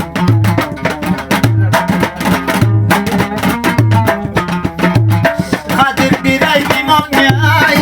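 Instrumental break in an Afghan Uzbek folk song: a dambura strummed fast and steadily over a hand-drum beat, with a wavering melodic line entering in the last two seconds.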